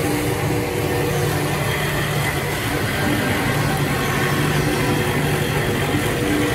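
Woodmaster two-axis CNC wood lathe running: a steady machine drone with a constant hum and an even hiss over it.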